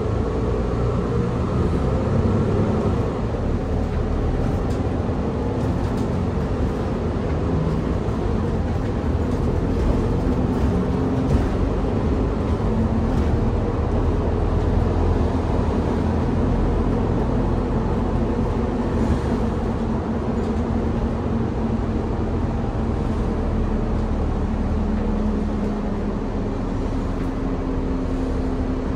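Cabin sound of a Mercedes-Benz Citaro O530G articulated bus under way: a steady engine and road rumble, with the engine's tone shifting slowly as it drives, and a few faint clicks.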